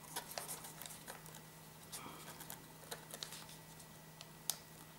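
Faint, scattered light taps and small clicks of paper and cardboard being handled on a worktable, with one sharper tap about four and a half seconds in.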